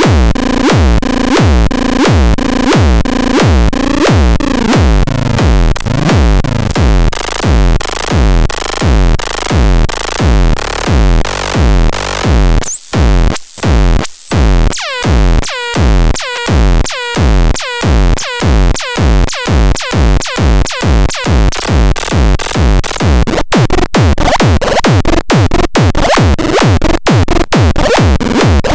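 Minimal techno played on electronic production gear: a steady drum-machine kick about twice a second under synth loops. The bass drops out for a few seconds about halfway through, then returns, and near the end the track stutters with short sharp cut-outs.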